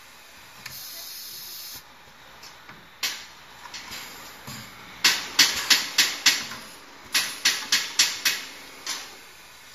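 Pneumatic snap band making machine for dust filter bags cycling: a short hiss of compressed air, then two quick runs of about six sharp strokes each, about four a second, each with a hiss of exhausting air, and one last stroke near the end.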